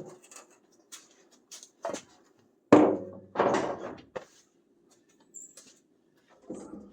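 Hand tools and loose metal parts clinking and knocking, with a louder clatter about three seconds in.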